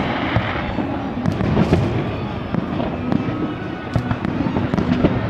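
Aerial fireworks shells bursting in quick succession: many sharp bangs one after another over a continuous rumble.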